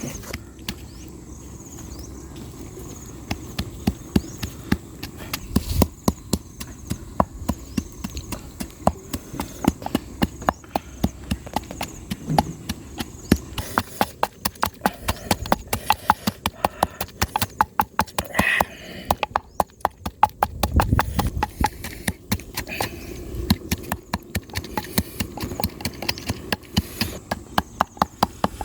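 A long run of sharp knocks, sparse at first and then coming in quick runs of about five a second, over a low steady background.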